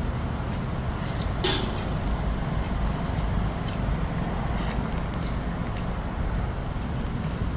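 Steady street traffic noise, with a short sharp click about one and a half seconds in.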